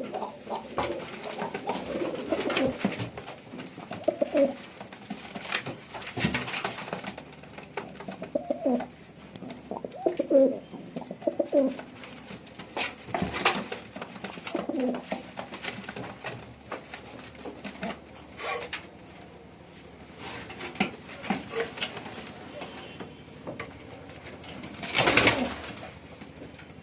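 Pigeons cooing over and over in low, throaty calls. There is one brief, loud, noisy burst about 25 seconds in.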